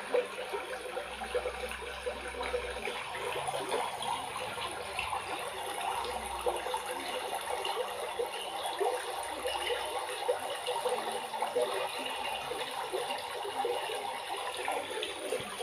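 Aquarium water trickling and bubbling steadily, with a fine crackle.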